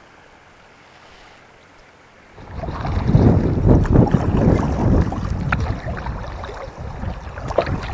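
A faint steady hush for about two seconds, then loud wind buffeting the microphone, mixed with the splashes of kayak paddle strokes in the river.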